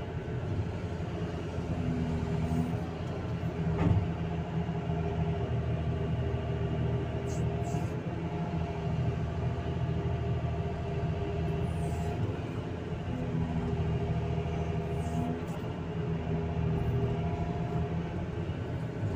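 Excavator's diesel engine and hydraulics running steadily under digging and loading work, a constant hum with one sharp knock about four seconds in.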